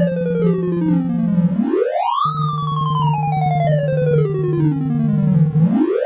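Synthesized beeps of the Sound of Sorting visualiser running gnome sort, each tone's pitch set by an array value being compared. A fast stream of beeps falls steadily in pitch over a held low tone, then sweeps quickly back up, twice: each fall is one element being swapped back past larger ones into place, and each rise is the sort stepping forward again.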